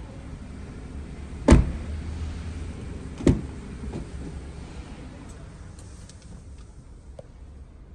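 Two solid car-door thumps about two seconds apart, the first the louder, on a Mazda CX-30, followed by a few faint clicks.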